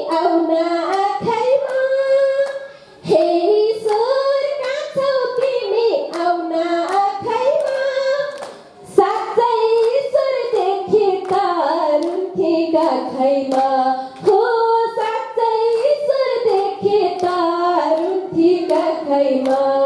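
A woman singing solo into a microphone, in long sung phrases with short breaks for breath, while people clap along in time.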